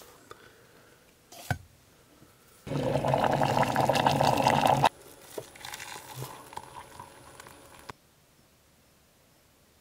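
Hot water poured from a kettle into a mug for tea: a short knock, then a loud steady pour lasting about two seconds, followed by a quieter, uneven trickle that stops suddenly.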